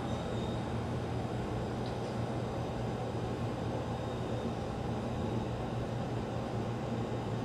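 A JR Freight EF210 electric locomotive standing still, its cooling blowers running with a steady low hum and hiss.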